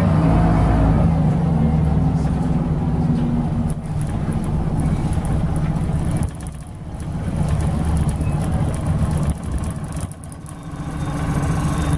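Rear-mounted Scania 9-litre inline-six turbocharged diesel of a Scania L94UB bus with a ZF automatic gearbox, heard from inside the passenger cabin while the bus is under way. The engine pulls steadily, eases off about four seconds in, drops away around six and ten seconds, and builds up again after each dip.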